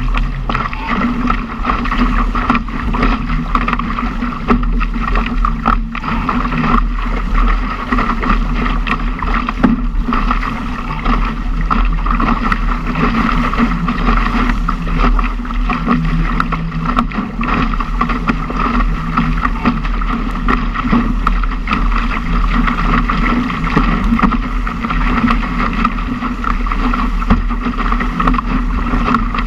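Laser sailing dinghy slicing through choppy water at speed in a strong wind: a steady loud rush of water along the hull, with spray splashing over the bow and wind buffeting the microphone.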